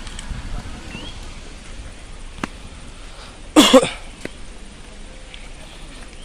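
One short, loud vocal burst from a person close to the microphone, about three and a half seconds in, over a low, steady background of outdoor noise.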